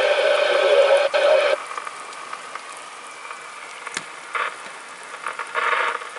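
Loud radio static that cuts off abruptly about a second and a half in, leaving a fainter steady hiss with a click and a couple of short crackling bursts.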